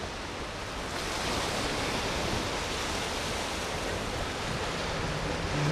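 Small waves washing onto a sandy beach: a steady hiss of surf, a little louder from about a second in.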